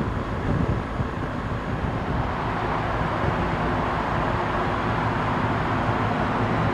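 BMW R 1200 GS motorcycle at motorway cruising speed: a steady boxer-twin engine hum under wind and road noise, with no change in pace, as the bike rides into a road tunnel.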